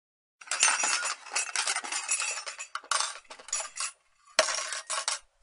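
Metallic clattering and clinking in several dense spells, with one sharp hit about four and a half seconds in, as the logo intro plays.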